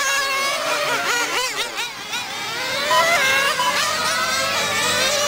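Several 1/10 scale on-road nitro RC cars' small glow-fuel engines running at high revs together, each pitch rising and falling over and over as the cars accelerate and brake around the track.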